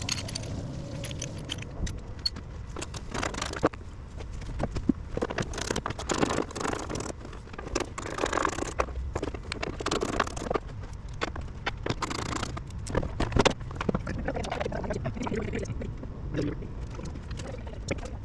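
Hand tools clinking and scraping on metal, with irregular clicks and knocks, as a battery tray is unbolted and worked loose from a car's engine bay.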